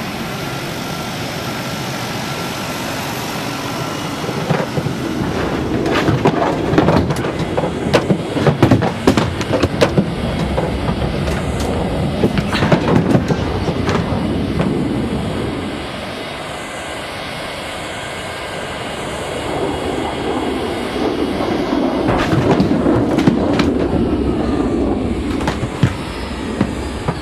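Airliner cabin noise: a steady engine drone, then a rattling clatter of knocks as the plane shakes in turbulence. The shaking eases around the middle and builds up again near the end.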